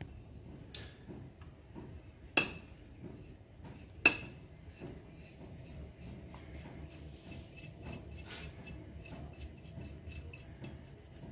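Dishes clinking: three sharp knocks of crockery in the first four seconds, then faint scraping and tapping as ground spices are scraped off a ceramic plate into a mixing bowl.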